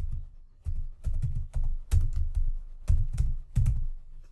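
Typing on a computer keyboard: a quick, irregular run of about a dozen keystrokes, each with a dull low thud.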